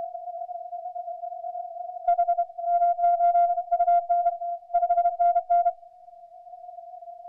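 Morse code (CW) on a ham radio transceiver on the 40 m band. A steady single-pitch tone runs throughout. From about two seconds in, a louder tone keys on and off in dots and dashes for a few seconds, clicking at each keying: the sidetone of the station's own transmission.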